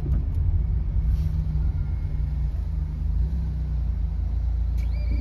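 Car engine idling steadily while stopped, heard from inside the cabin as a low hum. Near the end the parking ticket machine starts a steady electronic tone.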